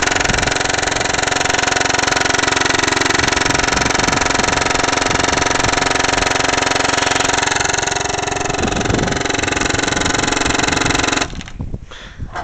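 Homemade rapid-fire paintball minigun built from AGD Automag markers, made for about 25 balls a second, firing non-stop as one steady, dense buzz of shots. It cuts off suddenly about eleven seconds in, which the shooter puts down to running short of air.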